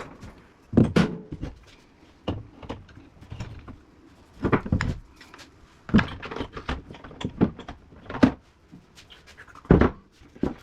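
A series of irregular knocks and clunks as scrap parts from a dismantled window air conditioner are handled and set down, several of them loud.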